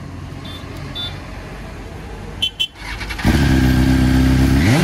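Two short electronic beeps, then about three seconds in a motorcycle engine starts up close and settles into a steady idle, with a quick rising rev near the end.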